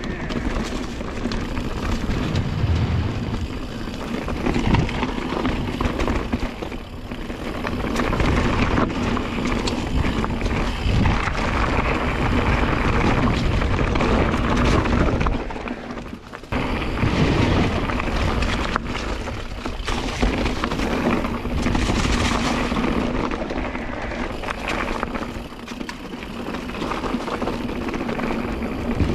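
Mountain bike riding fast along a dirt trail: a steady rush of wind on the microphone mixed with tyre and trail noise, easing briefly about sixteen seconds in.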